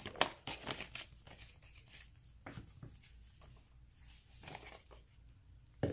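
Paper and card rustling with a few soft clicks as the game's rulebook and box contents are handled, most of them in the first second and then scattered and faint.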